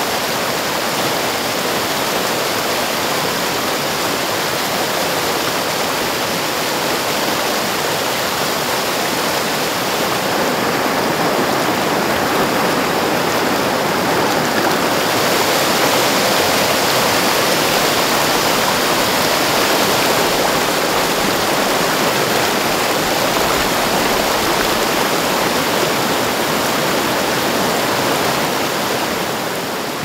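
Mountain stream cascading over boulders: a steady rush of falling water, a little louder from about halfway through and starting to fade out near the end.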